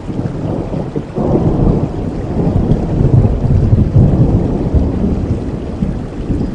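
Rain falling steadily with a long roll of thunder that swells about a second in and rumbles on, easing toward the end.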